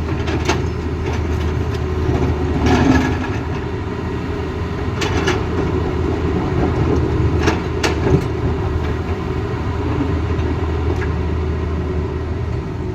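Heavy diesel engine of an excavator running steadily at a low hum, with several sharp knocks and clanks spread through, typical of a bucket and loose material at work.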